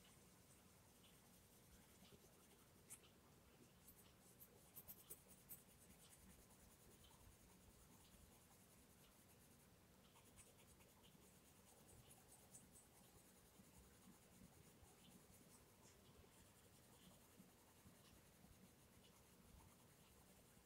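Coloured pencil shading on paper: faint, soft scratching of small back-and-forth strokes, with a few sharper scratches around five seconds in.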